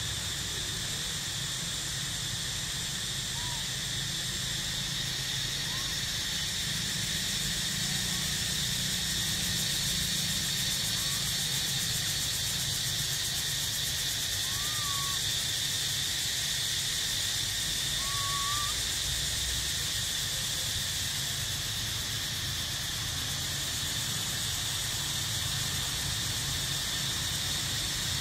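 Steady high-pitched drone of an insect chorus with a low rumble underneath. A few short, faint chirping calls come every few seconds.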